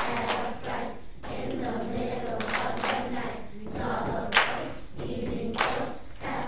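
A children's choir singing together, with a few sharp claps cutting through, the loudest about four seconds in.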